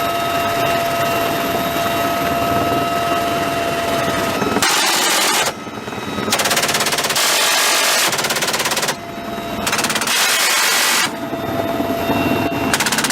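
Helicopter engine running steadily with a whine, then several long bursts of rapid-fire M134 minigun fire, each a continuous stream of shots. The first burst comes about four and a half seconds in, the longest lasts about two and a half seconds, and another begins near the end.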